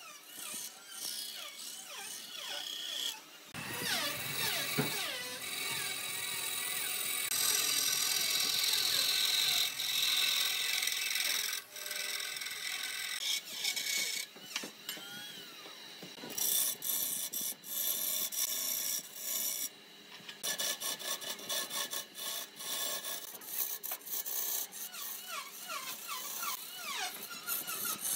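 Wood lathe turning, a cutting tool scraping the spinning wood with a continuous high hiss and squealing pitch sweeps. Dense rapid chattering ticks run through the second half.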